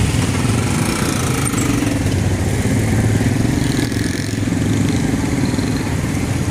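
A motorcycle rickshaw and motorbikes running close by in street traffic, giving a steady engine hum.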